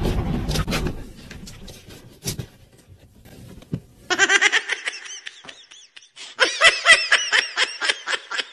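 A low rumbling noise fades out in the first second, then after a quiet stretch a person breaks into high-pitched laughter about halfway through, in rapid repeated bursts that keep going.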